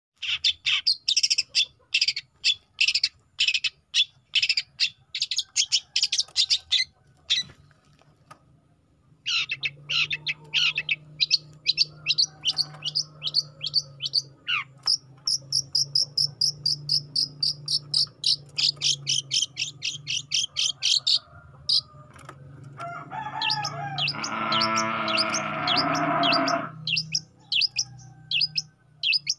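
Juvenile long-tailed shrike (cendet) singing continuously in rapid runs of sharp, high chirping notes, about four or five a second, with a short pause about eight seconds in. Near the end comes a louder, harsher, lower-pitched stretch of chattering lasting a few seconds, over a faint low hum.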